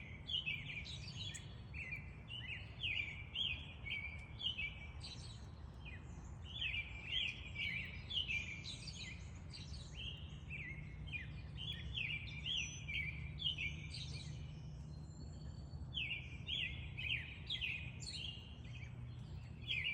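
Small birds chirping and twittering in a dense run of short, overlapping calls, pausing briefly about three quarters of the way through, over a steady low background rumble.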